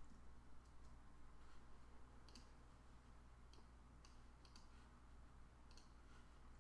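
Faint computer mouse clicks, several scattered over the last few seconds, over a low steady hum of room tone.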